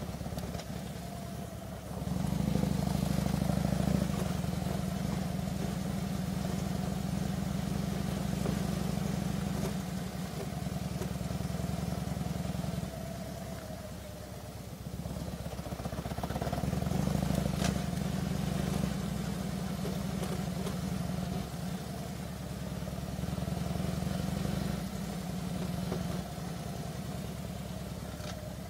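Harley-Davidson touring motorcycle's V-twin engine running at low road speed. It gets louder about two seconds in and again around sixteen seconds, and eases off in between.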